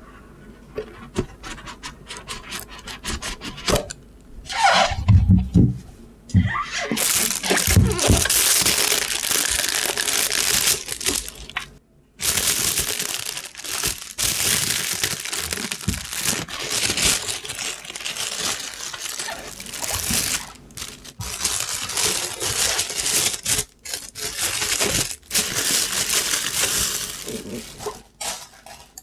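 Packaging being handled and opened: scattered clicks and knocks at first, then near-continuous crinkling and tearing of wrapping from about six seconds in, with a few short pauses.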